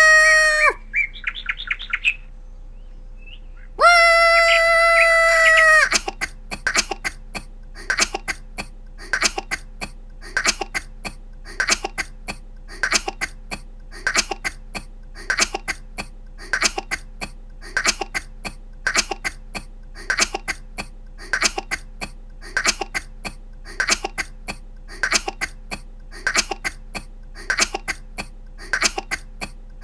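A woman's small, high-pitched coughs, repeated over and over in short clusters about once a second. Before them, in the first few seconds, come two long steady high tones.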